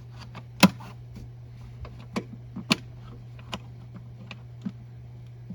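Plastic clips on a 2013 Dodge Grand Caravan's air filter housing being snapped shut and the lid handled: about half a dozen sharp clicks and knocks, irregularly spaced, over a steady low hum.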